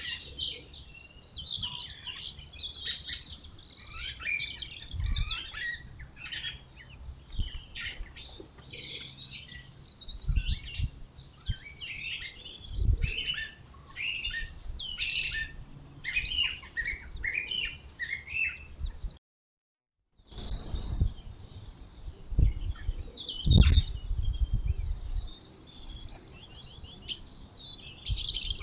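Small songbirds chirping and calling, a dense run of short, high notes, with a few brief low thuds now and then. The sound cuts out for about a second roughly two-thirds of the way through.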